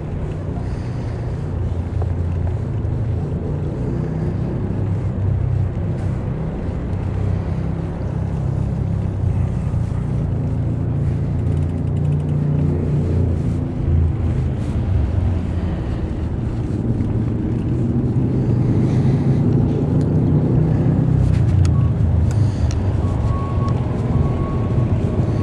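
Steady low rumble of wind buffeting the microphone and tyre noise from a bicycle being ridden, with a faint steady whine coming in near the end.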